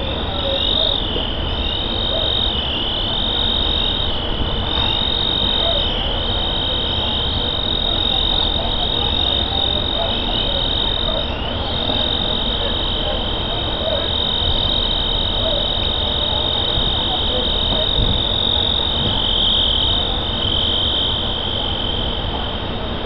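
A dense, unbroken high-pitched chorus of calling frogs, with many voices merging into a steady wavering trill.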